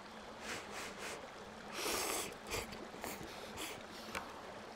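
Ramen noodles being slurped and eaten, with one longer, louder slurp about two seconds in and shorter mouth sounds before and after it.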